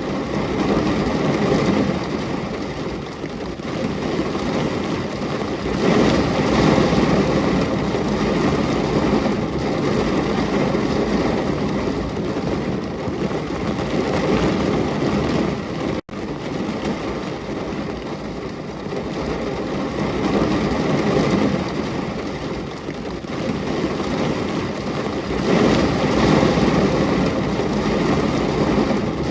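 Steady heavy rain, a continuous hiss that swells and eases in loudness, with a brief sudden dropout about halfway through.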